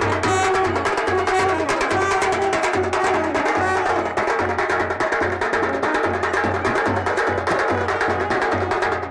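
Indian wedding procession (baraat) music: fast drums and percussion over a steady, evenly repeating bass beat.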